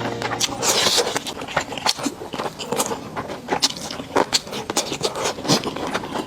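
Close-miked eating: chewing and mouth sounds made up of many small irregular clicks.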